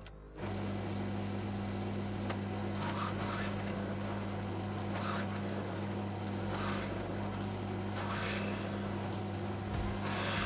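Drill press motor running with a steady hum while the bit enlarges the holes in a metal Stirling-engine flywheel, with about five short bursts of cutting noise as the bit bites into the metal.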